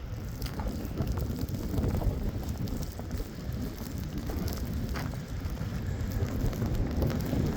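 Blizzard wind gusting over the microphone: a low rushing noise that swells and dips, with a few faint clicks.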